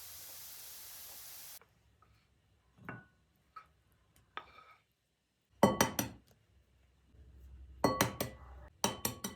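Food frying in oil with a steady sizzle, which cuts off abruptly after about a second and a half. Then a utensil clinks against a glass bowl: a few light taps, then three clusters of ringing clinks.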